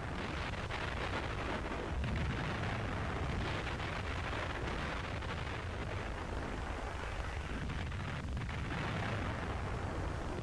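Steady low rumble with a hiss over it, level throughout, without distinct bangs or tones.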